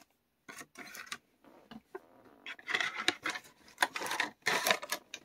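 HeroClix booster packaging and its cardboard case being handled, rustling and scraping in a run of short, irregular bursts.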